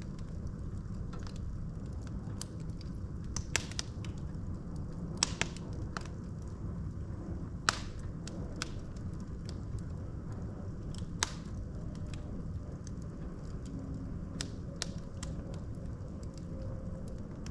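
Wood fire burning in a fireplace: a steady low rumble of flames with scattered sharp crackles and pops from the burning logs, a few louder snaps among them.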